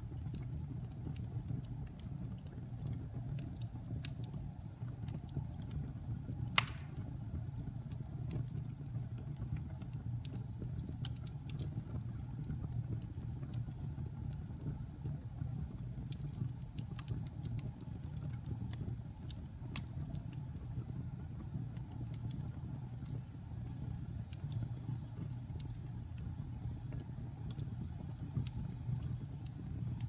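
Wood fire burning in a fireplace: scattered crackles over a steady low rumble, with one sharp loud pop about six and a half seconds in.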